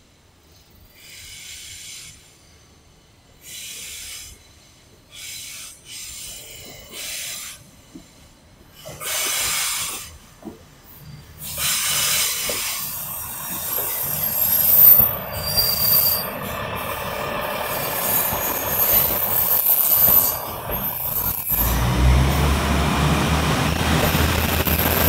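KiyaE195 rail-transport engineering train approaching and passing: a high-pitched squeal comes in short bursts at first, then the train grows loud as its power car goes by about halfway through, with a sharp squeal of the wheels. Near the end a deep rumble takes over as the rail-laden flat cars roll past.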